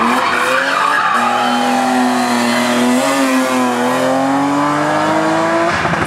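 BMW E36 race car's engine running hard through a hairpin, its pitch climbing steadily over the second half, with tyres skidding near the start as the car slides.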